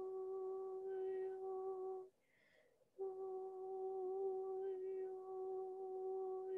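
A woman humming one steady, held note in a meditative drone, which breaks off for about a second roughly two seconds in and picks up again on the same pitch.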